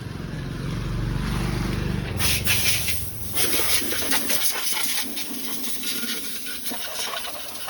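A low mechanical hum for about two seconds, then a loud, steady rushing hiss, broken briefly about three seconds in.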